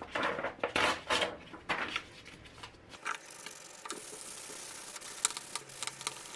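Sandpaper rubbing by hand over the plastic housing of a Black & Decker drill: several short scratchy strokes in the first two seconds, then a steadier scratching in the second half with a few sharp clicks.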